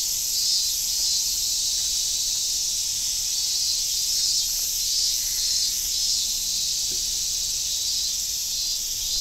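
A steady, high-pitched chorus of shrilling insects that pulses gently in level without stopping.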